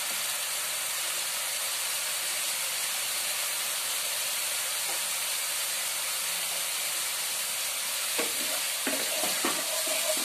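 Ground onion paste sizzling steadily in hot mustard oil in a frying pan as it fries until it takes on colour. From about eight seconds in, a wooden spatula stirs and scrapes through it.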